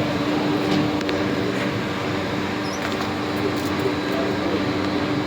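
Brückner textile stenter frame running: a steady mechanical hum from its fans and drives, with a constant low tone and a few faint clicks.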